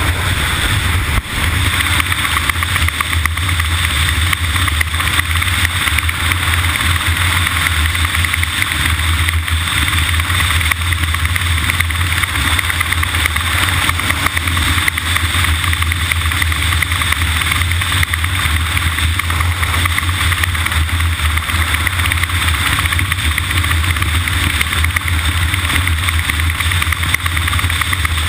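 A vehicle's engine running steadily, a constant low hum with a hiss above it that never breaks.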